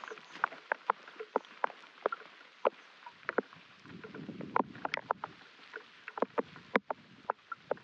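Raindrops dripping close to the microphone in a wet forest: irregular sharp ticks, several a second, with a low rustle of wind about four to five seconds in.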